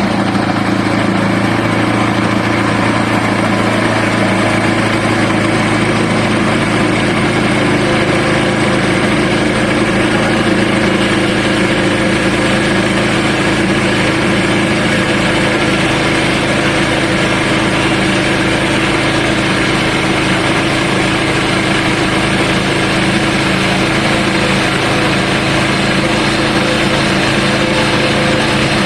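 Portable sawmill's engine running steadily under load through a cut in a hard southern rata log.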